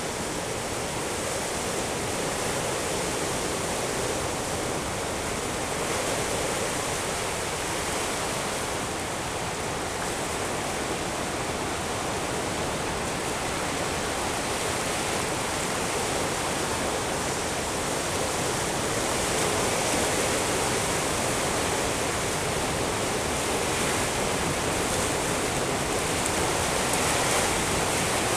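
Steady rush of ocean surf on a rocky shore, a constant even wash of noise with no single wave standing out.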